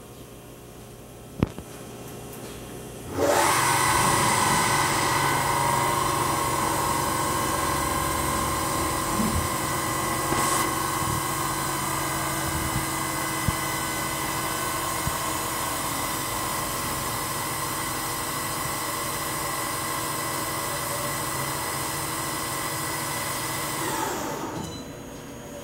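Milltronics Partner VM24 CNC vertical machining center running as its table and spindle head travel, a steady multi-tone whine that starts abruptly about three seconds in and stops near the end. A single sharp click comes just before it starts.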